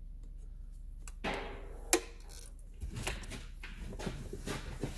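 Light metal clicks and scrapes of a small steel pin being worked into a serpentine belt tensioner to lock it, with one sharp click about two seconds in.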